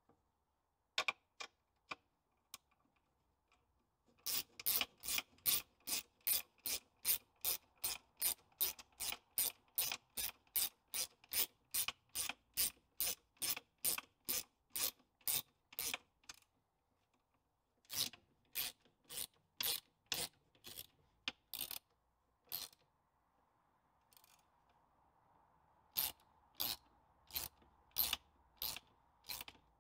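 Socket ratchet clicking in runs of even clicks, about three a second, as it winds down the nut on the centre bolt that draws a leaf spring's leaves together. There are a few single clicks first, then a long run, a short pause, a shorter run and a last run near the end.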